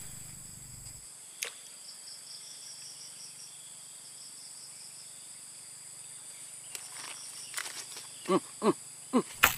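Insects buzzing steadily at a high pitch, with a single click about a second and a half in. Near the end comes a quick run of four or five short, loud, falling chirps.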